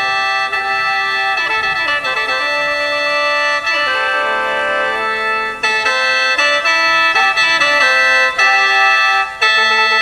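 Instrumental music with long held organ-like notes that change pitch every second or so.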